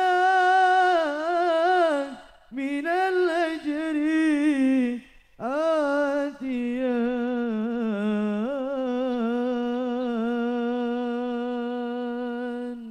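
A lone male voice sings a sholawat devotional phrase unaccompanied, ornamented with melismatic runs. The singing comes in three phrases, the last ending in a long held note of about six seconds.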